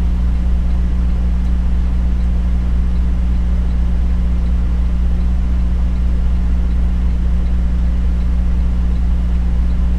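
Semi truck's diesel engine running at a steady, unchanging pitch, a low hum heard from inside the cab.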